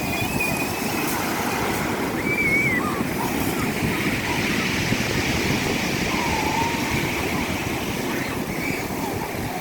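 Rough Black Sea surf: waves rushing and breaking in a steady wash of noise.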